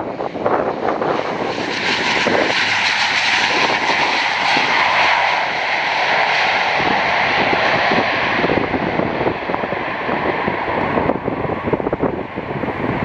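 Engines and propellers of a Bombardier DHC-8-400 (Q400) turboprop airliner passing close by as it lands. The sound swells about a second and a half in, holds, and fades after about eight seconds, with wind buffeting the microphone.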